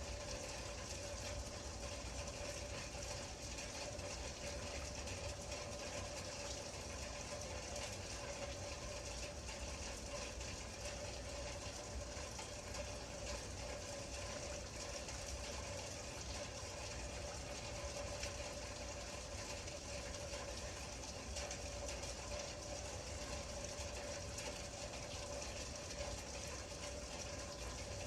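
Steady rain: an even, unbroken hiss with a steady hum underneath.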